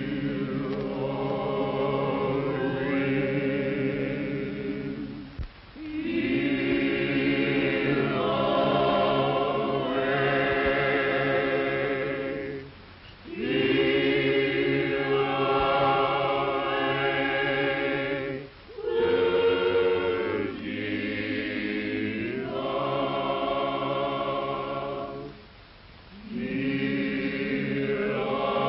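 A choir singing in long held phrases, with brief breaths between lines every five to seven seconds. The old recording is muffled, with no high end.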